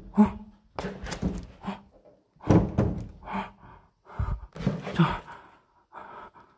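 A run of thunks and rustles, about one a second, from a cloth curtain being pushed aside and hands knocking against a window frame.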